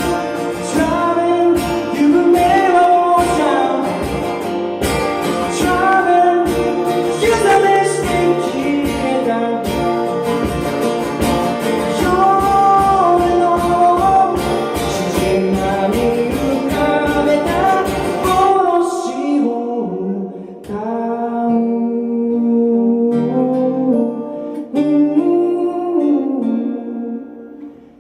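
A song with singing over guitar and a steady beat. About two-thirds of the way through the beat drops out, leaving the voice and guitar lighter, and the music briefly fades near the end.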